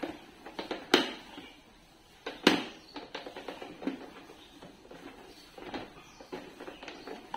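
Hands handling a Toshiba IH rice cooker's plastic body and lid: two sharp clicks, about a second and two and a half seconds in, amid lighter taps and rubbing.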